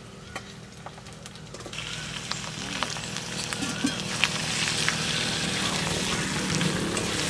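Chicken pieces sizzling in hot oil and ginger-garlic paste in a metal kadai as they start to brown (kosha), with a metal spatula scraping and stirring them. The sizzle sets in about two seconds in and grows steadily louder.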